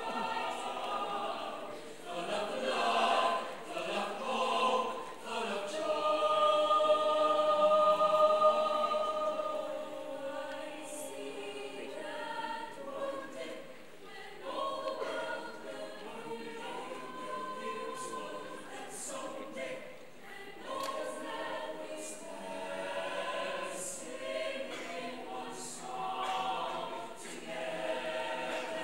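Mixed-voice choir of women and men singing, swelling to its loudest on long held chords about six to nine seconds in.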